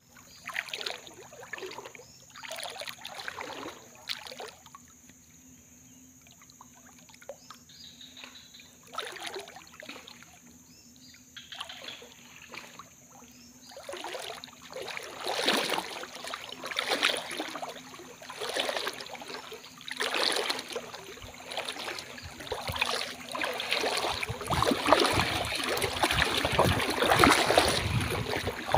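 Flood water sloshing and swishing as legs wade through it, in separate strides at first, then more often, and turning into near-continuous, louder splashing over the last few seconds as the wading speeds up.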